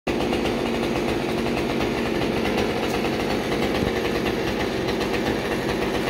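An engine running steadily at a constant speed, with no revving up or down.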